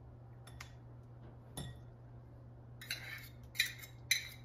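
Metal spoon clinking and scraping against a metal measuring cup as cottage cheese is spooned out into a glass bowl: two single clicks, then a quick run of clinks in the last second and a half.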